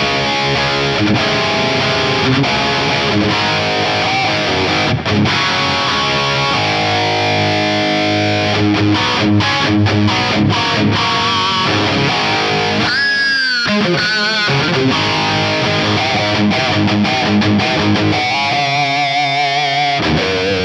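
Distorted electric guitar played through a Fractal Audio FM9 amp modeler on a crunch rhythm patch: chords and riffs, then lead playing. A little past the middle a note is bent up and let back down, and near the end a held note is shaken with wide vibrato.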